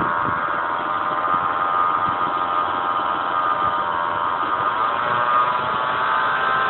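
Vectra 2.6 V6 engine running with a strong whine that sags in pitch and then climbs again near the end as the revs change. The cause of the whine is unknown.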